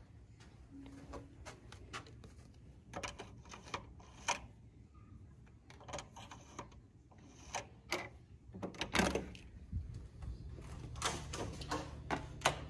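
Hotel room door being unlocked and opened: a run of sharp clicks and knocks from the electronic keycard lock, lever handle and door, loudest about nine seconds in. A low steady hum comes in near the end.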